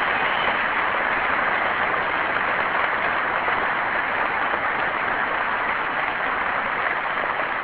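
Audience applauding, a dense and steady clapping with no break.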